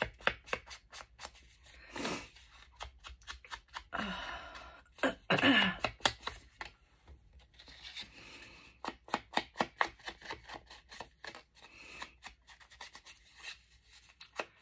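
Quick runs of short, crisp strokes of a hand tool working a manila paper tag, paper-crafting handwork.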